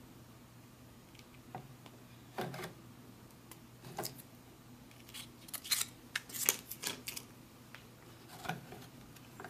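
Faint, scattered crinkles and clicks of a ration spread pouch being squeezed and handled as chocolate peanut spread is pressed out onto a cracker, over a low steady hum.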